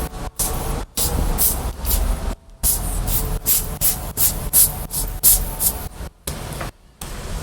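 Short, rapid blasts of compressed air, about two or three a second with brief pauses, blowing dust out of a laptop's cooling system.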